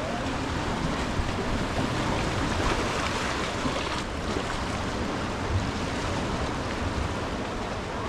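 Ocean surf washing onto a beach, a steady rush of waves, with a low rumble of wind on the microphone.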